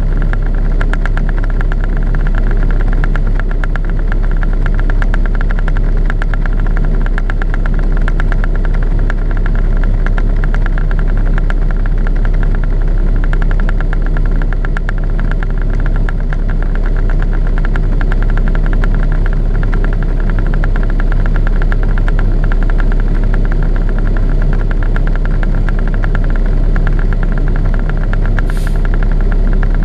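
Heavy diesel truck engine idling steadily, a constant low rumble with a rapid even firing beat, heard from inside the cab. A short hiss comes near the end.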